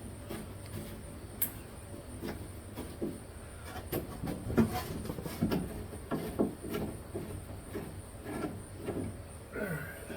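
Irregular clicks, clunks and rattles of window hardware being worked loose inside a 1954 Plymouth Belvedere's door, getting busier about four seconds in, over a steady low hum.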